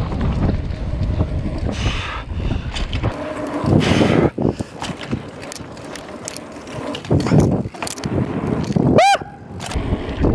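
Mountain bike ridden down a dirt jump line: tyres rolling and rumbling over dirt, with wind on the microphone and a louder burst about four seconds in. Scattered knocks follow, then two short chirps near the end that each rise and fall in pitch.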